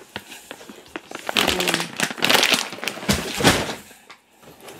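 A bag of dry dog food rustling and crinkling as it is handled, in irregular bursts, with a heavier thump about three seconds in.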